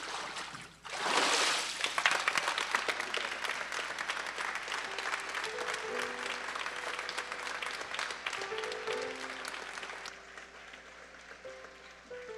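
Water splashing in a baptistery tank as a boy is lifted out after immersion baptism, followed at once by a congregation applauding, the clapping fading out about ten seconds in. A few soft sustained piano notes sound under the applause from about halfway through.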